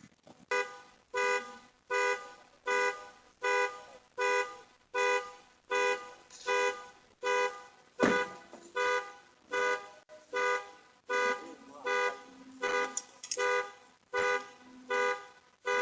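Vehicle alarm sounding the horn in short, evenly spaced two-tone honks, about four every three seconds, the alarm set off by someone tampering with the vehicle. A single thump lands about halfway through.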